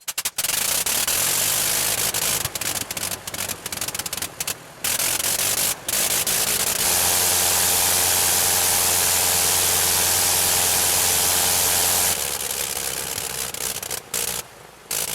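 Dubbed sound effect of a First World War rotary aero engine, as in a Sopwith Camel, with a harsh, noisy running note. It cuts out briefly several times, then holds a steady full-power run for about five seconds. After that it drops back to a lower, uneven running with more cut-outs near the end.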